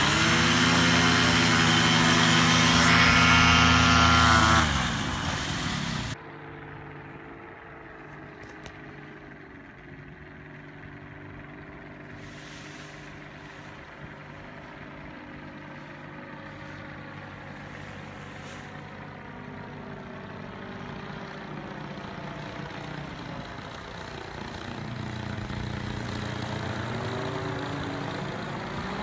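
Paramotor trike engine and propeller running loudly at high power as the wing inflates for takeoff, fading after about four seconds. Then a distant paramotor engine running steadily in flight overhead, its pitch slowly shifting and growing louder near the end.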